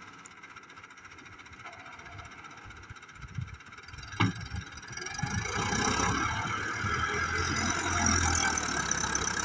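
Farm tractor's engine running as its front-end loader works; a single sharp knock about four seconds in, then the engine grows louder and stays louder as the bucket is driven into a heap of soil.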